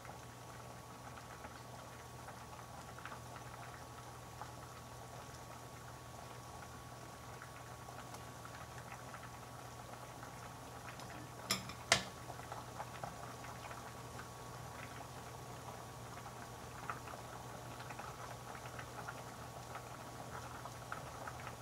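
Spaghetti boiling in a large pot of water on a gas stove: a steady bubbling full of small pops. About halfway through there are two sharp clicks close together, a utensil knocking the pot while stirring.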